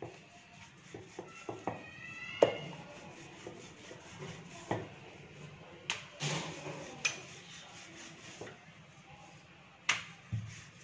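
Wooden rolling pin rolling out bread dough on a hard counter, with scattered light knocks and taps as the pin and hands touch the counter; the loudest knock comes about two and a half seconds in.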